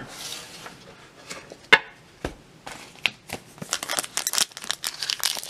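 Foil trading-card booster pack crinkling as it is handled, dense and crackly over the last couple of seconds. A few sharp clicks and taps come before it, the loudest a little before two seconds in.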